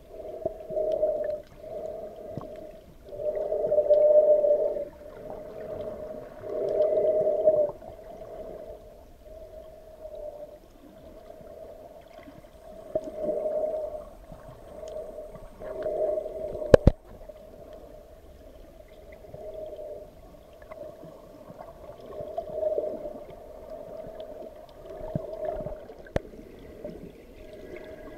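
Muffled underwater sound picked up by a submerged camera: hollow, gurgling water noise that swells and fades every second or two, with one sharp click about seventeen seconds in.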